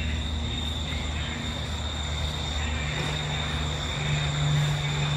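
A steady low engine drone that grows louder about three to four seconds in, with a faint steady high whine over it.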